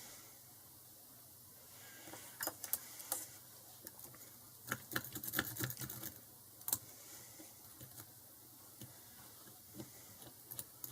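Lock pick and tension wrench clicking and scraping in the keyway of a Squire SS50C padlock, in two clusters of quick small clicks a few seconds apart.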